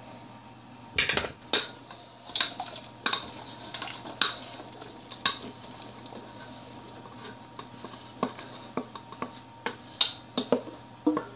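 A metal bowl clinking and scraping against the rim of a stainless steel pot as chopped vegetables are tipped into the broth: a run of sharp metallic clinks and clatters, heaviest in the first few seconds and again near the end.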